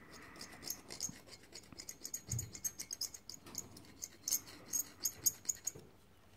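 A steel scriber scraping and picking in the seal grooves of a brake caliper bore: a quick irregular run of small, sharp scratches and ticks that dies down near the end, with one soft bump about two and a half seconds in. It is dried brake-fluid residue being cleaned out of the grooves before new seals go in.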